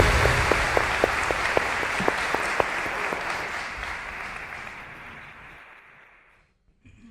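Concert-hall audience applauding, dying away over about six seconds into near silence.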